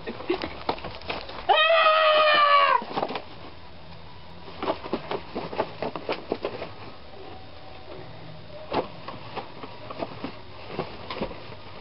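A high-pitched vocal cry, held for about a second and falling slightly at the end, about a second and a half in, followed by scattered knocks and bumps.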